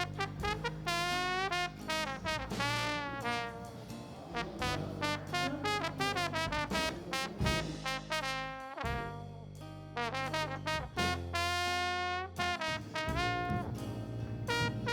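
Background jazz music, with a brass horn playing the melody over a steady bass line.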